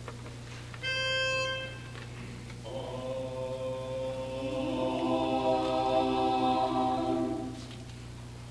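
A pitch pipe sounds one short steady note about a second in. Then a barbershop quartet of a man and three boys sings a held chord a cappella, lower voices joining partway through, and stops shortly before the end.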